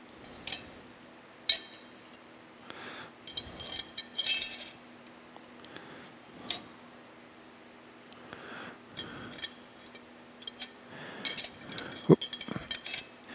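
Steel and fiber clutch plates being laid one by one into a Hydra-Matic front clutch drum: scattered light metallic clinks and taps, with the brightest ringing cluster about four seconds in and a run of quicker clicks near the end.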